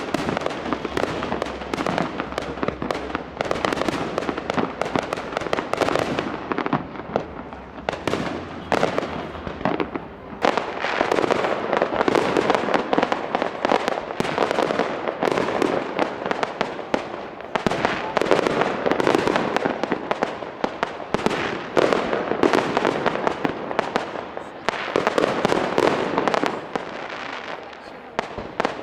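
Fireworks going off in rapid succession: a dense, continuous run of bangs, pops and crackles, easing slightly near the end.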